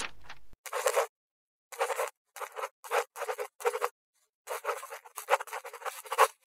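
A scratchy writing sound effect in short clipped bursts, about seven of them, with dead silence between, timed to a caption being written out on screen; the longest burst comes near the end.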